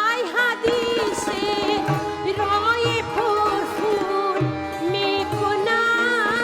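Traditional music: a melody with sliding, ornamented notes over a steady drone, with low hand-drum strokes joining about two seconds in.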